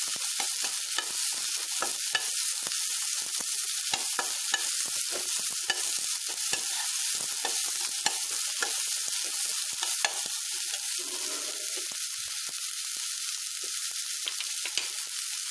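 Chopped cluster beans sizzling in coconut oil in a stainless steel kadai while being sautéd, a steel spatula repeatedly scraping and clicking against the pan as it stirs.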